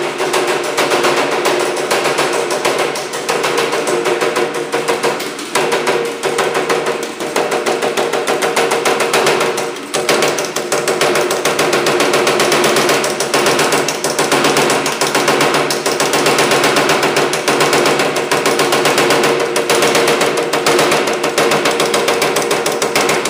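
Baileigh power hammer running at about 400 rpm, its ram striking in a fast, unbroken rattle of blows as an aluminium body panel is worked between the dies to stretch it, with a couple of brief lulls.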